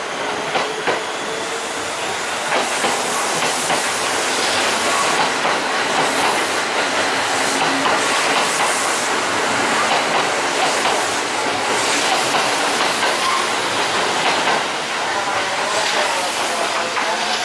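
Kintetsu Urban Liner limited express electric train running past close by: a steady rush of running noise with rapid wheel clatter over the rail joints, growing louder about two seconds in as it nears and staying loud.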